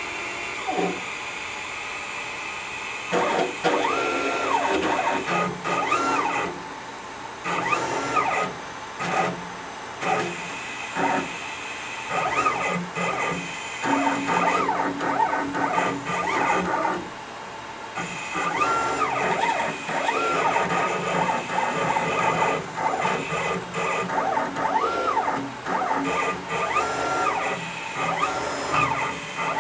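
Stepper motors of a home-built CNC router jogging its axes with no router fitted: whining tones that glide up as each move speeds up and down as it slows, stopping and starting every second or two, with a printer-like sound.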